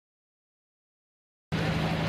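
Silence, then about one and a half seconds in the sound cuts in abruptly: a pulling tractor's engine running steadily at the line, with a low hum and outdoor noise.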